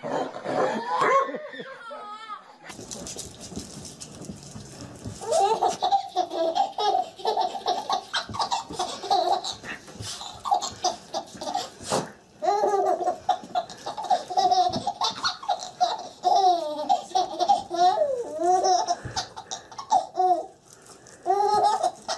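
A baby laughing in short repeated bursts, again and again, with brief pauses between fits.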